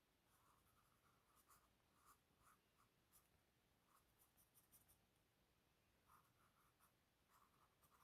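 Faint drawing strokes of a pen or pencil scratching on paper, short and irregular, coming in clusters.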